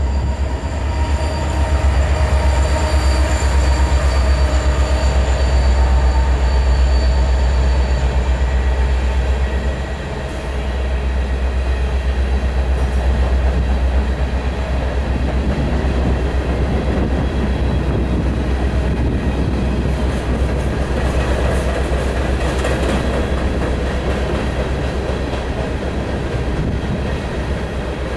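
Empty coal hopper cars rolling past, wheels clattering and clanking over the rail, with a thin high squeal for the first several seconds. A heavy low rumble of wind on the microphone runs underneath.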